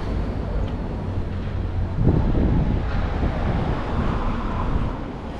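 Wind buffeting the microphone: an irregular low rumble that swells about two seconds in.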